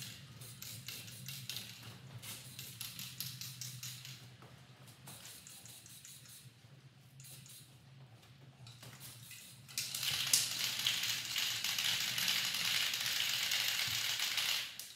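Aerosol spray-paint can: first shaken, its mixing ball rattling in quick regular clicks, then about ten seconds in a steady hiss of matte black paint spraying for about five seconds, cutting off abruptly near the end.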